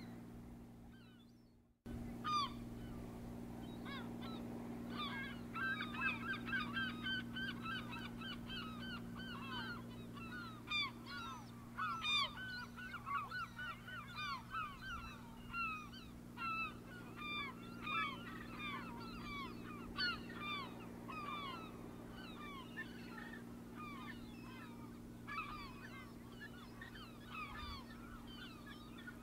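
A flock of birds calling continuously, many short down-slurred calls overlapping, over a steady low hum. It starts abruptly about two seconds in.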